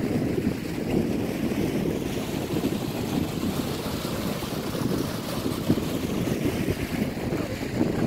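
Mountain stream water rushing and splashing over rock into a leaf-covered pool, a steady rush with wind buffeting the microphone.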